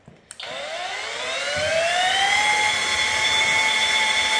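Electric paddle mixer starting up in a bucket of cornice cement: its motor whine rises in pitch for about two seconds, then it runs steady as it mixes.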